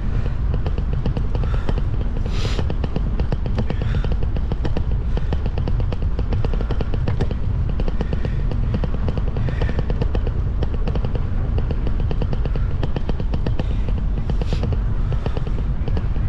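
A vehicle engine running steadily under a heavy low rumble, its firing heard as a rapid, even pulse.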